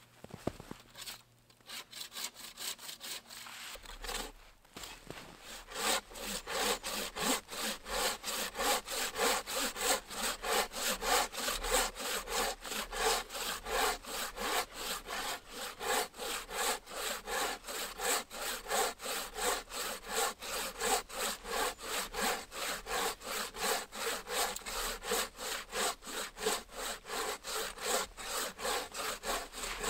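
A bow saw cutting through a log in rapid, even back-and-forth strokes. The strokes are soft at first and become louder and steady about six seconds in.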